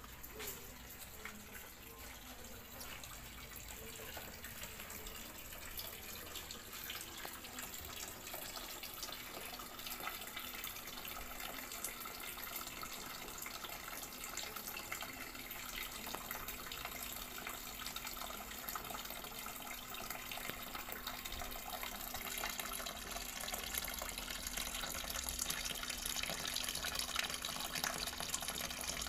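Thin stream of water from a small solar-powered fountain pump's outlet tube pouring into a shallow pebble-lined tub: a steady splashing trickle that grows gradually louder toward the end.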